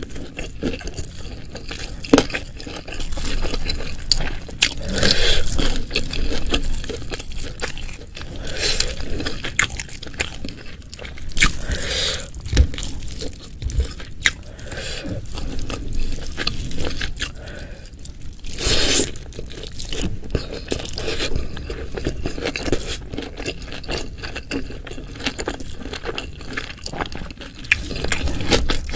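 Close-miked eating: irregular wet chewing and crunching of fried fish and spicy side dishes, with occasional scrapes and a few louder crunches.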